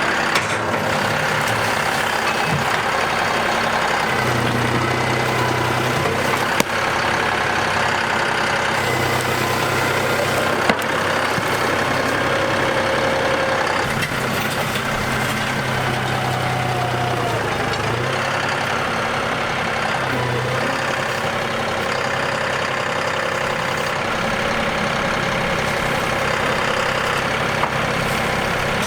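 A vehicle engine running steadily, with a few sharp clicks over it.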